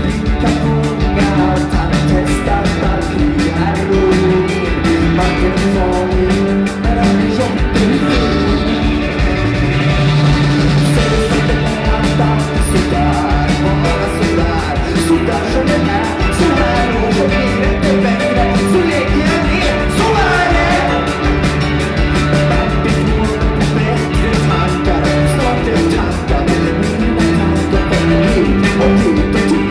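Live rock band playing: a male lead voice singing over electric guitar and drums with a steady beat.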